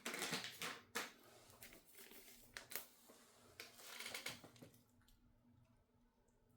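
Faint rustling of packaging and a few light clicks as small parts are handled, fading to near silence about five seconds in.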